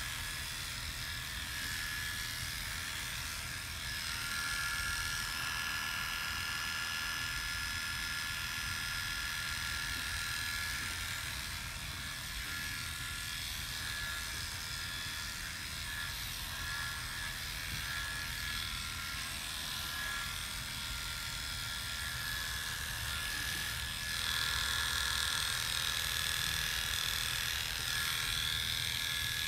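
Electric Oster hair clippers running with a steady buzz while shaving a man's head down to short stubble. The buzz gets somewhat louder near the end.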